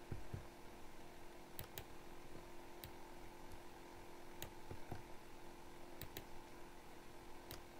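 Faint, sparse clicks of a computer mouse, a second or more apart and twice in quick pairs, over a faint steady electrical hum.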